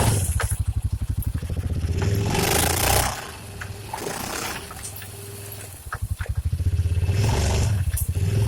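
Honda Pioneer 700-4's single-cylinder engine running as the side-by-side drives the trail. The engine drops off for about three seconds in the middle, then picks up again. A short rushing scrape comes about two seconds in, with scattered clicks and knocks of the machine over rock.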